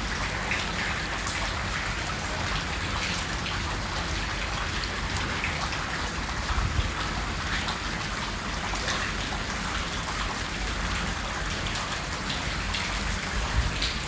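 Heavy rain falling, with a dense pattering of drops close by and water dripping from overhead. A couple of low thumps stand out.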